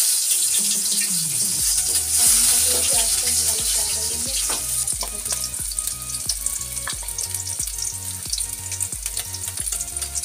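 Chopped onion sizzling and crackling in hot oil in a steel kadai. It is loudest just after the onion goes in, then settles a little.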